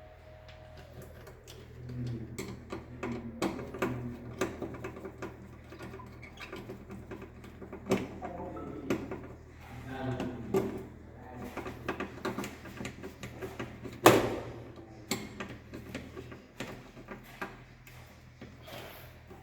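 Irregular clicks and knocks of hand tools and wires being handled at a distribution board, with one sharp, louder knock about fourteen seconds in, over a steady low hum.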